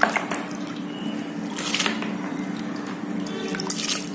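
Wet soaked chana dal and its water tipped from a glass bowl into a stainless-steel pressure cooker: a few brief wet splashes and drips, about two seconds apart, over a steady low hum.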